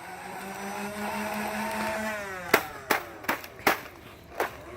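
Nerf Rival Khaos flywheel motors revving up to a steady whine, then winding down in pitch as five sharp cracks come over about two seconds while the last rounds in the magazine are fired.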